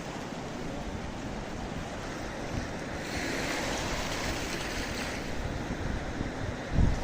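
Steady rush of water with wind buffeting the microphone, and a strong low gust of wind noise just before the end.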